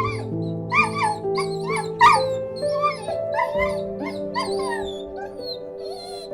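A dog yipping and whimpering in quick, repeated high calls, about two to three a second, over soft instrumental music.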